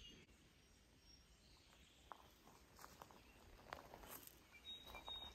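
Near silence: faint outdoor ambience with a few soft, scattered ticks.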